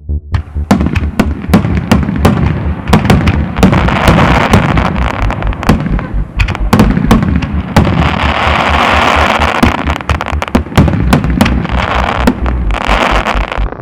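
Fireworks going off in rapid succession: a dense run of bangs and pops, with stretches of crackling between them.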